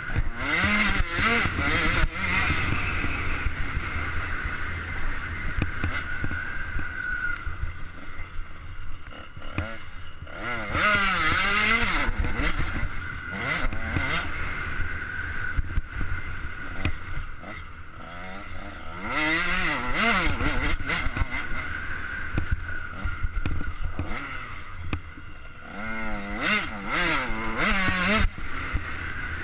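KTM 85 SX's 85 cc single-cylinder two-stroke engine under hard riding, its pitch climbing and dropping again and again as it revs out in bursts and eases off between them.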